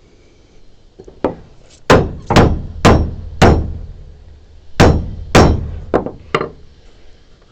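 Hammer blows on wood: a light tap, then four hard strikes in quick succession, a short pause, two more hard strikes and two lighter taps near the end.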